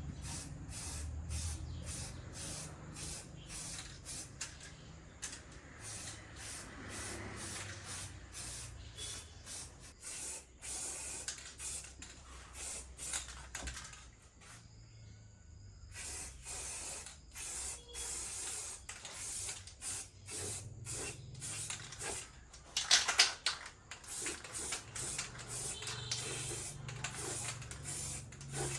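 Repeated short hissing spray bursts, a few a second, pausing briefly about halfway through, with the loudest burst about 23 seconds in.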